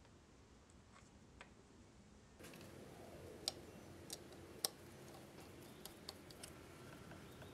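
Near silence for the first couple of seconds. Then faint room tone with a few sharp clicks and lighter ticks as a hand screwdriver drives small screws to fasten a USB hub circuit board to plywood.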